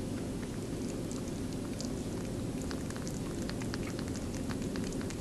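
Pet rabbit chewing and licking applesauce: quick, irregular small wet mouth clicks over a steady low hum.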